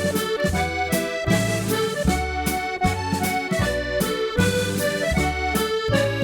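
Accordion playing a Scottish pipe march arranged for a Canadian Barn Dance: a melody over a steady oom-pah accompaniment of bass notes and chords, about two beats a second.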